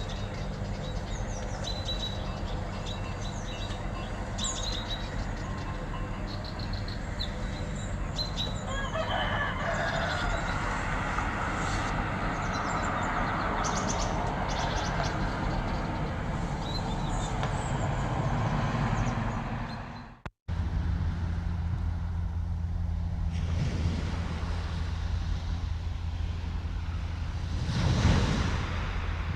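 Field recording of birds chirping, many short high calls over a steady low hum. About two-thirds of the way through it cuts abruptly to a different recording: a steady low drone with one swell that rises and falls near the end.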